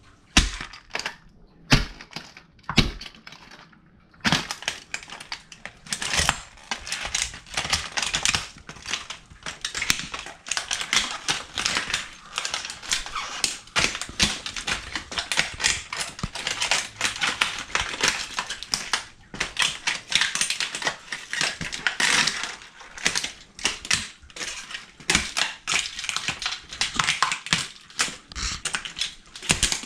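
La Sportiva hiking boots stomping on a plastic radio, its broken housing cracking and crunching and small plastic pieces rattling under the soles. A few separate stomps at first, then a dense, continuous crackle from about four seconds in.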